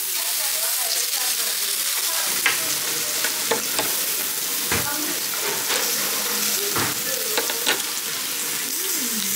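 Steak sizzling steadily on a hot serving plate, with a few sharp clicks of knife and fork against the plate.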